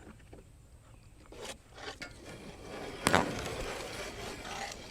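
Wood scraping and knocking as a freshly sawn board is lifted and shifted on the sawmill bed: scattered scrapes, one louder knock about three seconds in, then a stretch of rough scraping.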